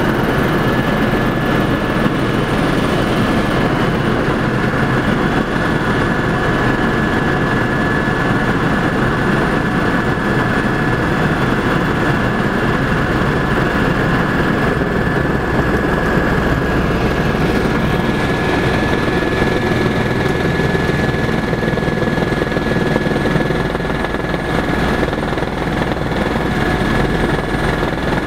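Helicopter in flight, heard from inside the cabin: a steady, loud rotor and engine noise with a thin high whine running through it.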